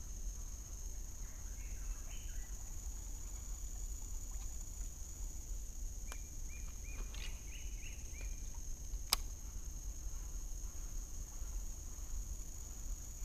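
Steady high-pitched drone of insects, with a bird giving a quick run of chirps about six to eight seconds in. A single sharp click about nine seconds in.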